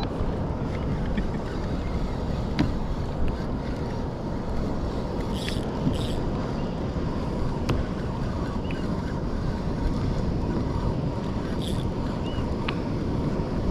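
Steady wind buffeting the microphone over the wash of choppy sea water against a fishing kayak, with a few faint clicks.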